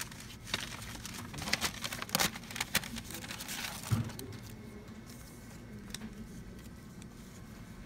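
Paper rustling and light tapping as paper cutouts are shaken out of a paper envelope onto a desk: a quick run of taps and rustles for about three seconds, ending in a soft thump about four seconds in, then a single faint tap.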